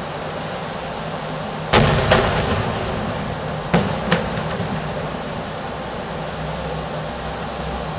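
Distant fireworks shells bursting: a loud echoing boom with a second close behind it about two seconds in, then two fainter booms a couple of seconds later, over a steady background hum.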